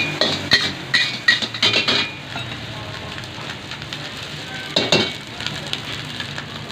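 Food sizzling and frying in a hot wok. Quick metal clanks of the spatula against the wok come during the first two seconds and again about five seconds in.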